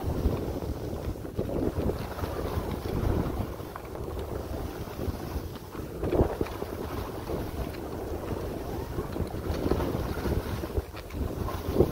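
Wind buffeting the microphone at skiing speed, mixed with the hiss and scrape of skis on snow, swelling and easing with the turns.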